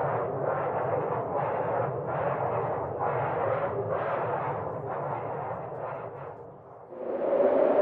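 Sound-effect collage: a noisy rumbling sound pulsing about twice a second, fading out near the end. A new, louder sound with a steady mid-pitched tone then comes in.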